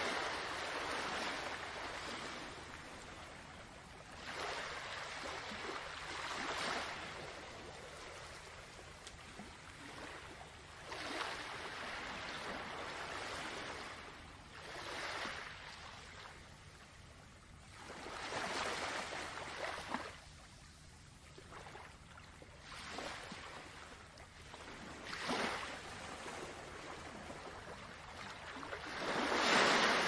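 Ocean waves surging and falling back, a swell of rushing water every few seconds, the strongest near the start and the end, over a steady faint low hum.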